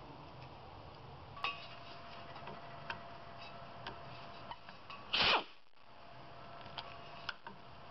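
Faint scattered clicks and small metal clinks of a screwdriver working screws on the metal preheater block of a waste-oil heater burner. About five seconds in there is one louder, brief sound that falls quickly in pitch.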